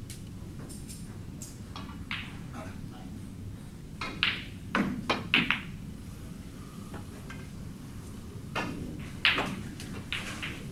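Snooker balls clicking: the cue striking the cue ball, then sharp ball-on-ball clicks and knocks off the cushions. They come in two clusters, the loudest about four to five seconds in and another near the end.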